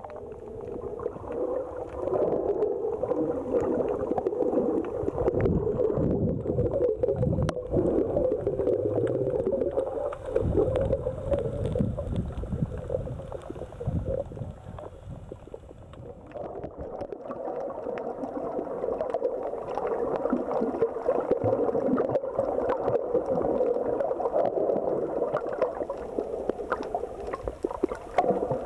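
Muffled underwater water noise recorded with the camera held below the surface: a steady gurgling rush that swells and dips, with faint scattered crackles.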